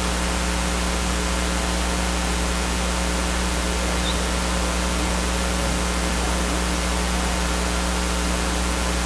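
Steady hiss with a low electrical mains hum, unchanging throughout: the noise of the sound feed with nothing else on it.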